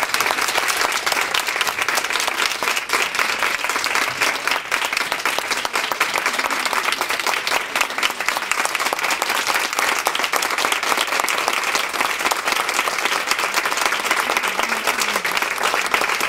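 Audience applauding: many hands clapping steadily in a standing ovation.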